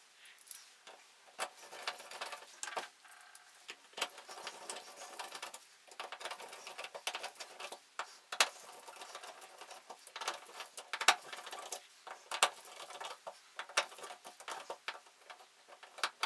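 A hand screwdriver turning the screws that hold a new thermostatic shower cartridge to its valve body, drawing the cartridge back into place. It makes irregular small metal clicks and light scraping, with short pauses between turns and a few sharper clicks in the second half.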